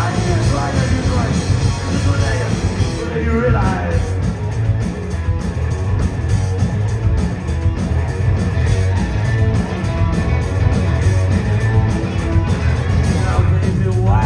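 Live rock band playing: electric guitars, bass guitar and drums, with a sung vocal for the first few seconds. An instrumental passage follows, and the vocal comes back near the end.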